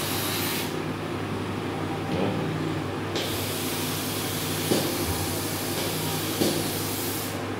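Compressed air hissing from the open end of a dental chair's handpiece hose. There is a short burst at the start, then a longer steady blast from about three seconds in that cuts off shortly before the end, over a steady low hum.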